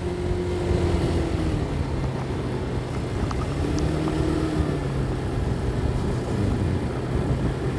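Motorcycle engine running steadily while riding, heard through a helmet-mounted microphone with low wind rumble; its pitch eases off slightly and picks up again.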